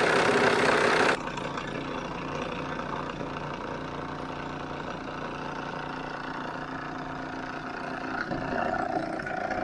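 Live steam model locomotive's safety valve blowing off with a loud steam hiss, which cuts off suddenly about a second in as the valve reseats. A quieter steady hiss from the hot engine continues after.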